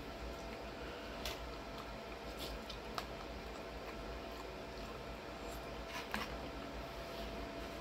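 Faint sounds of a person eating pasta from a bowl: a few light clicks of a fork against the bowl, and chewing and sipping, over a steady low hum with a thin steady tone.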